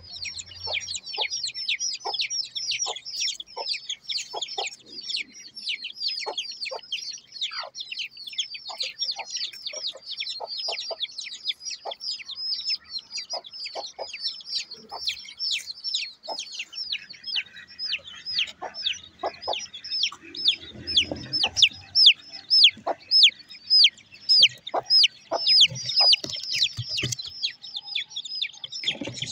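Aseel chick peeping: a constant stream of high, downward-sliding cheeps, several a second, with short lower clucking notes mixed in. It grows louder about two-thirds of the way through.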